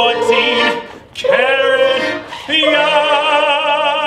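Operatic-style singing in a high voice. It gives a few short notes and a sliding rise about a second in, then holds a long note with strong vibrato from about two and a half seconds in.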